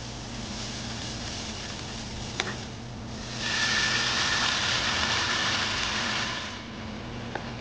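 Water poured into a hot nonstick pan of frying masala, hissing and splashing loudly for about three seconds before it stops. Before the pour, the oil and spices sizzle more quietly as they are stirred, with one sharp tap a little past the middle of that stretch.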